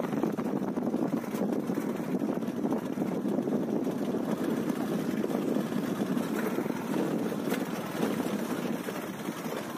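A small engine running steadily at an even speed, a continuous low rumble with no changes.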